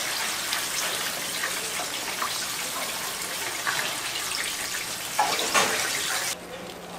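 Hot oil sizzling and crackling in a deep fryer around a batch of breaded chicken drumsticks in a wire skimmer, with a couple of sharper clatters near the end before the sizzle cuts off abruptly.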